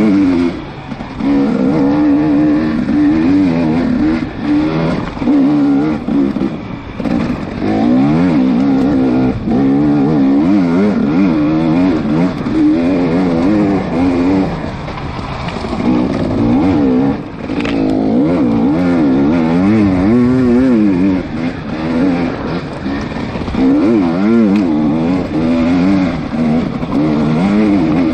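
KTM 300 EXC two-stroke single-cylinder dirt bike engine, revving up and down continuously under load over rough ground, with several brief dips as the throttle is rolled off.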